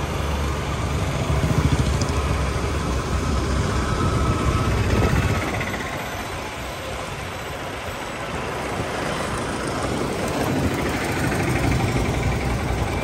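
Engine and road rumble of a moving two-wheeler in town traffic, easing off for a few seconds about halfway through, then picking up again.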